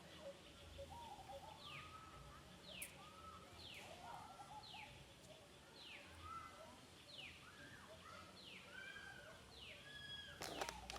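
Faint bird calls: a short falling whistle repeated about once a second, with lower arched notes in between. A sharp click comes near the end.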